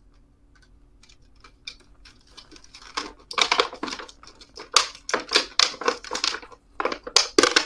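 Clippers snipping a plastic model free from its packaging, with plastic crinkling and rustling. Faint handling at first, then a run of sharp clicks and crinkles from about three seconds in.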